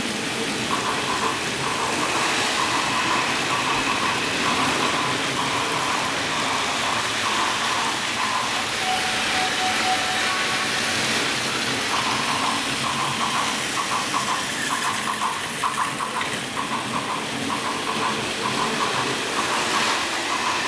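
N-gauge model trains rolling on the layout's track: a steady running rattle with a rhythmic clicking that runs for several seconds, pauses around the middle, and returns.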